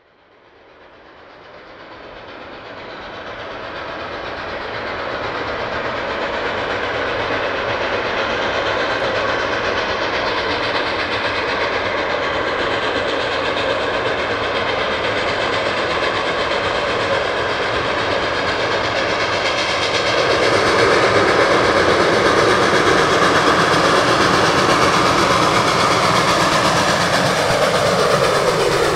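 Reading & Northern 425, a 4-6-2 Pacific steam locomotive, approaching with its passenger train. The sound fades in and grows steadily louder, then louder again about two-thirds through, and its pitch starts to drop at the very end as the engine draws level.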